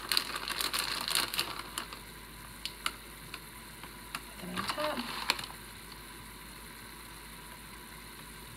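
Plastic bag of shredded cheese crinkling and rustling for the first couple of seconds, followed by a few light ticks and taps as the cheese is sprinkled over the dish, with a faint steady hiss underneath.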